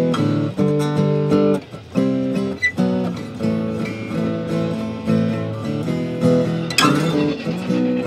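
Seagull S6 GT steel-string acoustic guitar, freshly restrung, played in changing chords and picked notes to check for fret buzz after a setup, with one sharp strum about seven seconds in.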